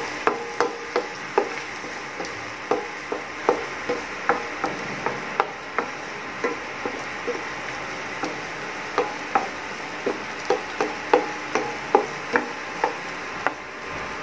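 Wooden spatula knocking and scraping against a nonstick frying pan while stirring diced onion and carrots: irregular knocks, two or three a second, over a steady low hiss.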